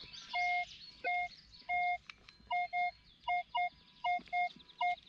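Minelab Equinox 800 metal detector sounding a repeated single-pitch target tone, about ten short beeps at a few per second as the coil is swept back and forth over a buried target. The steady, repeatable tone marks a solid signal worth digging.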